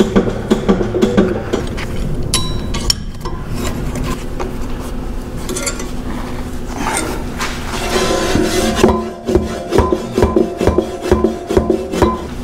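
Background music with a steady beat, with clinks and scrapes of heavy steel plate being handled mixed in.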